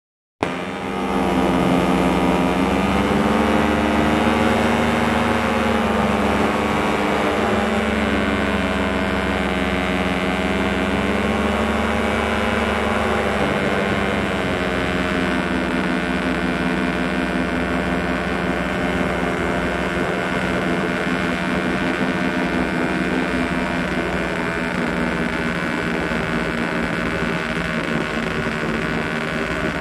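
The motor of a small aircraft runs steadily at cruise. Its buzzing pitch drifts slightly up and down over the first half, then holds steadier.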